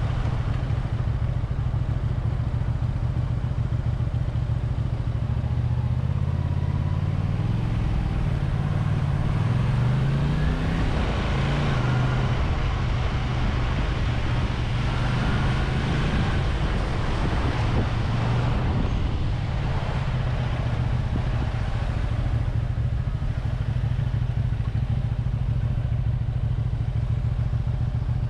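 Honda VT250F Integra's 250 cc V-twin engine running as the motorcycle rides, its pitch climbing as it accelerates a few seconds in. A louder rushing noise rises over it for several seconds in the middle.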